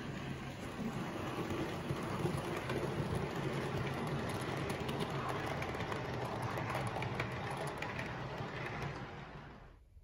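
Model railway diesel locomotive running along the track, a steady mechanical running sound with a low hum that grows louder as it comes close, then cuts off suddenly near the end.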